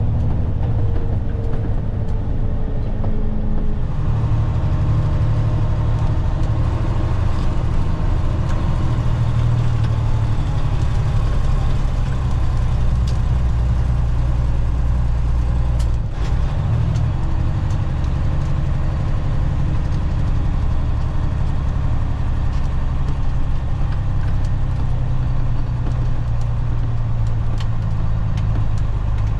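Engine of a grain-hauling vehicle running steadily, a continuous low drone with a few faint clicks.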